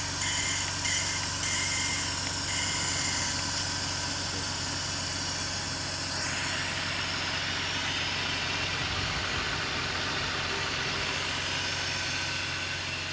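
BMW E46 engine idling steadily, its alternator running on a freshly replaced bearing, smooth rather than grinding. A high-pitched whine cuts in and out over the first few seconds.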